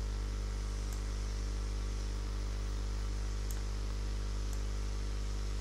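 Steady electrical mains hum with hiss on the microphone line, and a few faint ticks.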